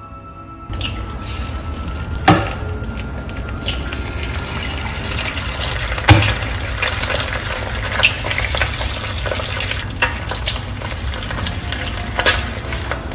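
Eggs frying in hot oil in a nonstick frying pan, a steady sizzle that starts under a second in, as eggs are cracked in one after another. Sharp eggshell knocks cut through the sizzle about five times, roughly every two seconds.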